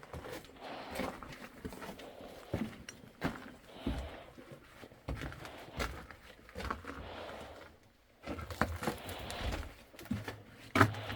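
Footsteps on rock and loose debris in a mine drift, with scattered knocks and scuffs.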